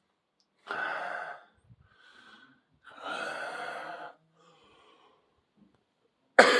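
A person breathing out heavily twice, each breath about a second long, with fainter breaths between, then a sharp cough right at the end.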